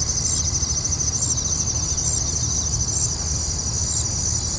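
Steady chorus of field insects, a continuous high, finely pulsing buzz with a fainter high chirp repeating about once a second. A low steady rumble runs beneath it.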